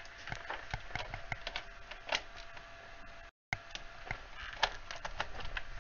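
Scattered light clicks and taps of small hard objects being handled on a desk, with a brief dropout in the sound a little over three seconds in.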